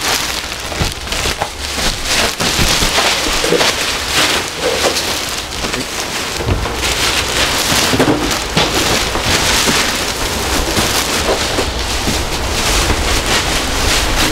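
Large plastic bag rustling and crinkling while bedding is stuffed into it, with occasional dull thumps from the futon and blankets being handled.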